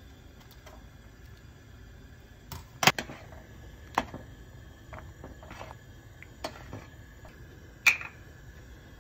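Kitchen scissors snipping maesaengi seaweed over the pot: a handful of sharp metallic clicks, the loudest about three seconds in and another near the end, over a faint steady hum.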